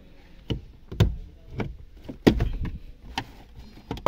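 Hard plastic clicking and knocking as a Toyota RAV4's dashboard head unit is prised up out of its mount with a flat-blade screwdriver: about half a dozen sharp clicks and knocks, the loudest a little over two seconds in.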